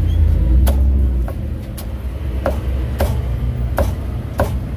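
A heavy cleaver chops through crisp-skinned roast meat into a thick wooden chopping block, about seven sharp chops roughly half a second apart. Under the chops runs a steady low rumble, heaviest in the first second.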